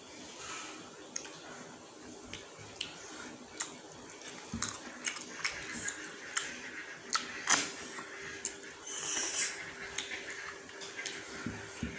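Close-up mouth sounds of eating goat meat curry by hand: wet smacking and chewing clicks, with a louder hissing suck about nine seconds in as a meat bone is sucked.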